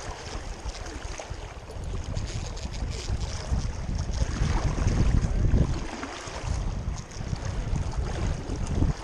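Wind buffeting the camera microphone in gusts, strongest about halfway through, over the steady rush of shallow river current.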